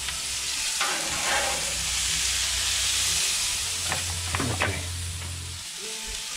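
Hot gas grill sizzling steadily as meat drippings cook on the grates, with a few short clinks of metal tongs against the grill and foil pan about a second in and again near four seconds.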